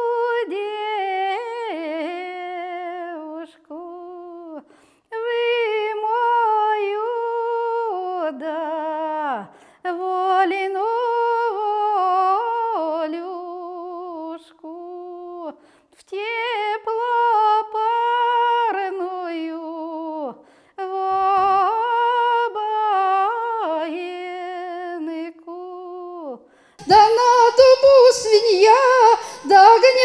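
A woman singing a traditional Russian bride's lament (vopl') unaccompanied, in phrases a few seconds long with a strong wavering vibrato, several dropping away at their ends, and short pauses between them. About 27 seconds in, it cuts to a louder, hissier recording of a woman's voice through a microphone.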